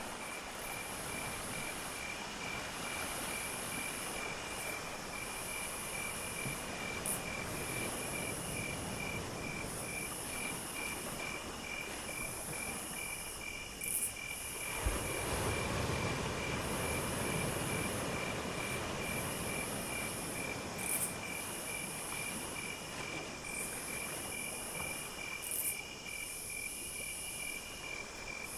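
Insects calling: a steady, fast-pulsing cricket trill, with a higher buzzing insect in repeated bursts about a second long. Under them runs an even rushing noise that swells for a few seconds midway.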